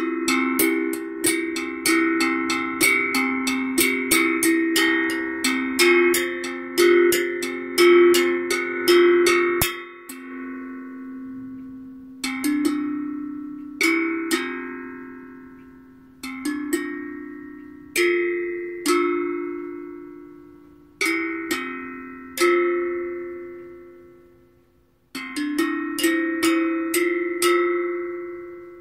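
Steel tongue drum struck with mallets in an improvised tune. It opens with about ten seconds of quick notes, then slower single notes each ring out and fade, and quick playing returns near the end.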